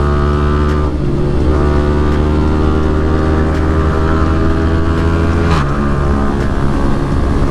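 Yamaha R15M motorcycle's single-cylinder engine running at steady riding revs. There is a short dip in the note about a second in, and the revs drop abruptly at about five and a half seconds.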